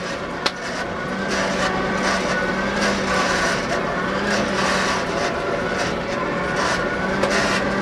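Coal forge's air blower running steadily: an even rushing noise with a low, steady hum underneath.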